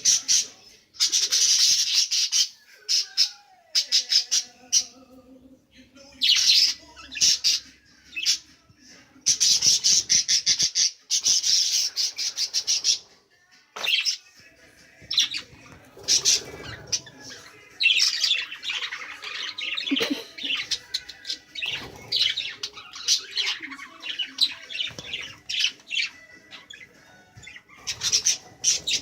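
Pet budgerigars in an aviary squawking and chattering: loud harsh screeches in bursts of a second or more, with quicker chirps packed together in the second half.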